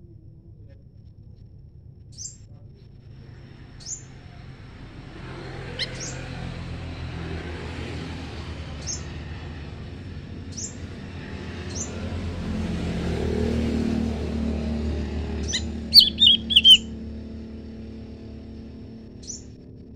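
Small wild birds calling: short, thin, high chirps every second or two, with a louder quick cluster of notes about sixteen seconds in. Behind them a passing vehicle's rumble swells from about five seconds in, peaks, then fades.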